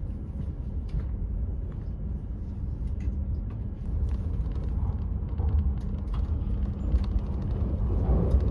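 Steady low rumble of a Hayabusa shinkansen running, heard from inside the Gran Class passenger car, with a faint steady hum and a few light clicks over it.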